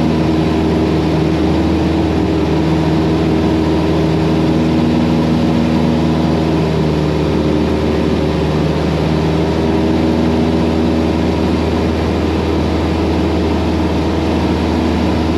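Cessna 172's piston engine and propeller droning steadily in cruise, heard as cabin noise through the pilot's headset intercom feed.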